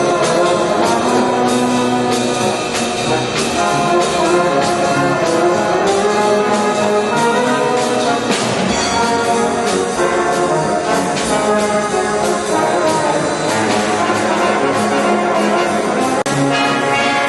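Music led by brass instruments, trombones and trumpets playing over a full band.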